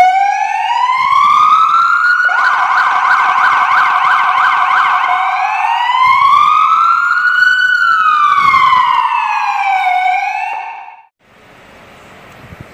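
Police siren of a 2016 Ford Explorer police SUV, run from a Feniex 4200 siren controller and cycling through its tones. A wail rises, then a fast yelping sweep, about three a second, is layered over a held tone for about three seconds. The wail then rises and falls slowly, and the siren cuts off about eleven seconds in.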